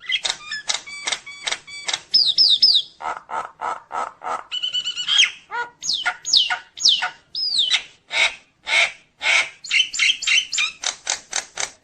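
Nias hill myna singing a loud, varied song packed with borrowed phrases: quick runs of short sharp notes, a few falling whistles, a buzzy note near the middle, and fast repeated notes near the end.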